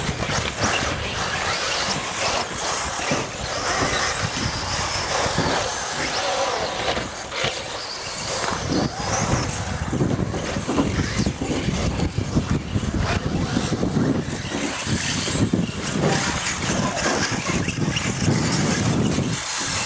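Radio-controlled off-road model cars racing around a track, their motors running, with the noise rising and falling as the cars come and go.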